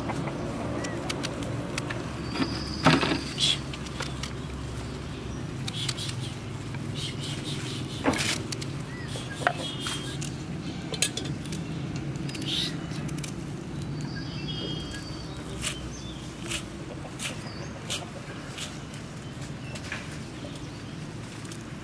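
Small kitchen knife slicing a raw red onion held in the hand, giving short crisp cuts and clicks as the blade meets the thumb and pieces drop onto a plate. Over a steady low background hum, a bird calls briefly twice.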